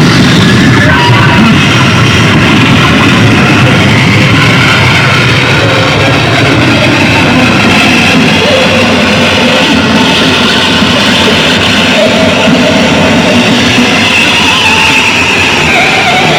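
Harsh noise played live on electronics: a loud, unbroken wall of distorted noise with wavering tones drifting through it and no steady beat.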